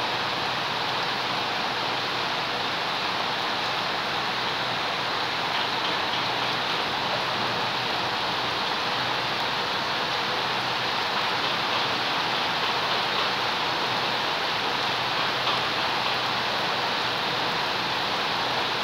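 Steady rain falling on plants and wet ground, an even hiss that does not let up.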